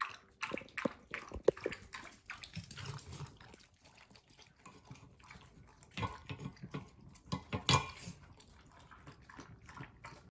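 A Cavapoo eating and drinking at stainless-steel bowls: quiet, irregular clicks and clinks against the metal, with small wet lapping and mouthing sounds. There are louder knocks about six and eight seconds in.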